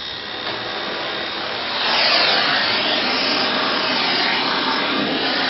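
A vacuum hose running with a steady rushing noise as it sucks up clipped hair from a dog's shaved surgical area; it gets louder about two seconds in, its pitch shifting as the nozzle is moved over the coat.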